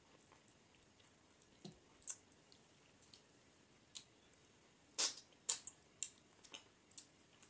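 Close-miked wet eating sounds from a man eating by hand: scattered short lip smacks and chewing clicks, with a run of louder smacks about five seconds in.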